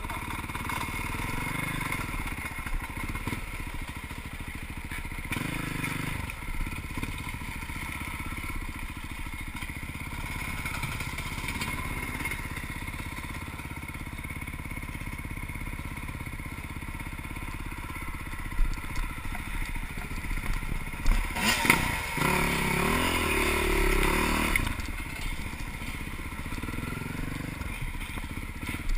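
Off-road vehicle engine running steadily over rough ground, with knocks and clatter; about two-thirds of the way through it revs up louder for a few seconds amid sharp bangs, then settles back.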